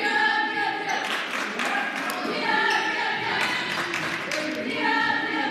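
Echoing gym din at a high school basketball game: several held shouts and calls from players and spectators, with scattered knocks and claps.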